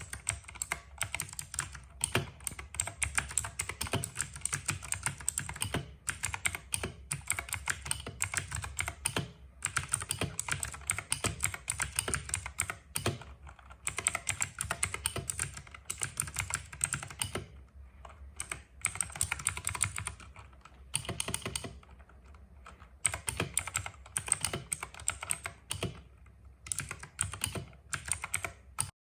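Fast typing on a computer keyboard: dense runs of rapid key clicks with short pauses between bursts.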